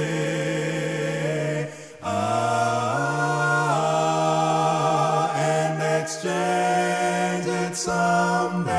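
Male a cappella quartet singing held harmony chords on the hymn's final refrain, the chord shifting a few times with a brief breath about two seconds in.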